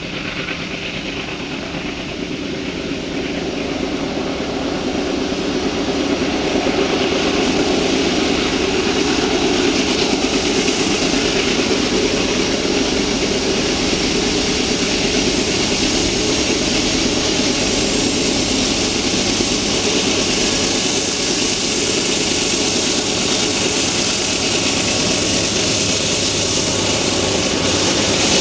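Canadian Pacific GE ES44AC diesel-electric locomotives hauling a heavy coal train up grade, engines running hard under load. The sound grows louder over the first several seconds as the units approach, then holds steady.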